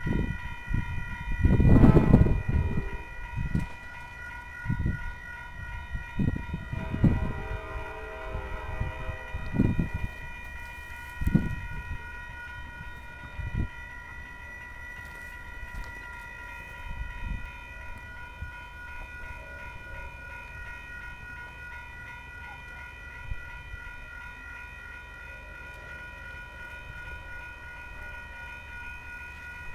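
Electronic grade-crossing warning bell sounding a steady, unbroken pitched tone, the warning that a train is approaching. Gusty low rumbles, loudest about two seconds in, fade out by about fourteen seconds.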